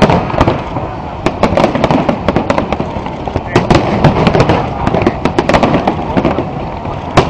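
Aerial fireworks display: shells bursting overhead, many sharp bangs in quick succession with no pause between them.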